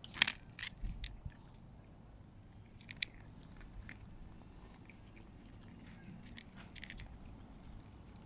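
A cat chewing crunchy Dreamies treats: faint, irregular crunches, with the sharpest one just after the start.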